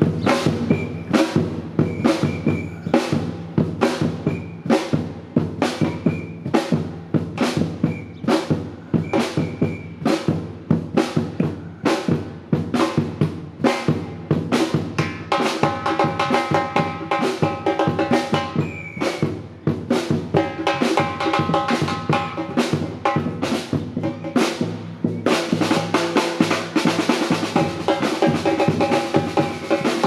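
A Latin percussion band practising: drums striking a steady, driving rhythm. Pitched tones join about halfway through, and the playing grows denser and brighter in the last few seconds.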